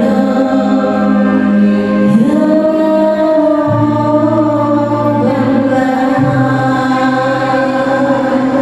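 Islamic devotional singing (sholawat) in long held notes over electronic keyboard accompaniment, the melody stepping to a new note every second or two.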